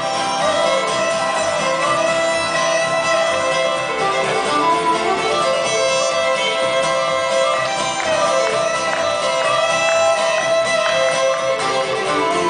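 Clawhammer banjo playing an old-time tune, with other string instruments playing along.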